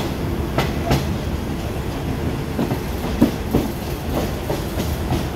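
Passenger carriage of an express train running at speed, heard from inside. There is a steady low rumble of wheels on the track, with several sharp clacks as the wheels cross rail joints.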